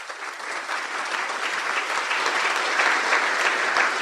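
Audience applauding, starting from scattered claps and quickly building to full, steady applause.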